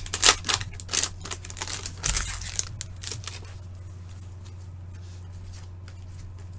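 A foil trading-card pack crinkling and tearing open in gloved hands, then a stack of cards being slid and flicked through, with quieter light ticks over the last few seconds. A steady low hum runs underneath.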